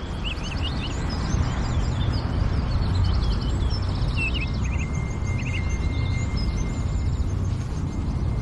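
Birds chirping and trilling over a steady low outdoor rumble, with a thin steady high tone joining about halfway through.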